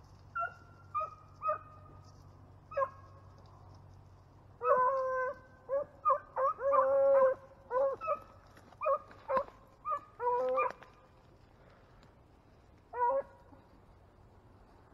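Beagles baying on a rabbit's trail: a few single yelps, then a burst of closely spaced, overlapping bawls from about five to eleven seconds in, and one more call near the end.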